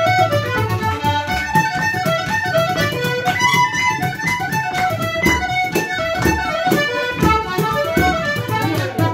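Irish traditional dance tune played on button accordion, tin whistle and fiddle, with a steady percussive beat underneath.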